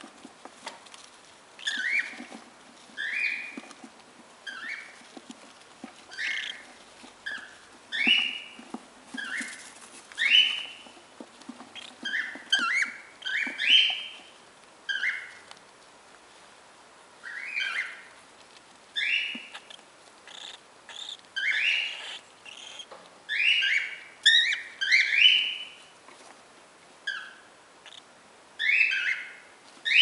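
Cockatiel chicks calling in the nest box: short chirps that rise in pitch, repeated irregularly about once a second, sometimes two close together.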